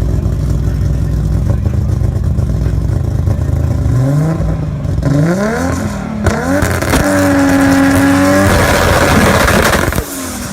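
Toyota Supra engine idling with a low, steady note, then blipped several times so its pitch sweeps up and down. It is then held at high revs for about a second and a half, followed by a loud rushing noise that drops off suddenly about ten seconds in.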